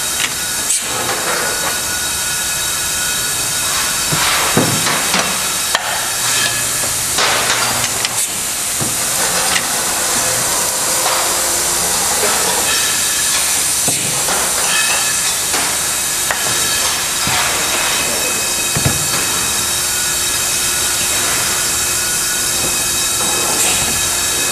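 Bottling-line machinery running: a steady loud hiss with constant whining tones, broken by occasional sharp knocks.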